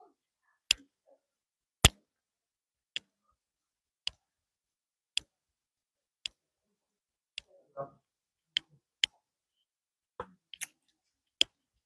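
Sharp, short clicks at a steady pace of about one a second, with near silence between them and a faint murmur of voices a little before the middle.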